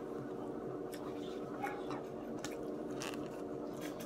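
A person chewing food with the mouth closed, with short sharp mouth clicks every second or so, over a steady background hum.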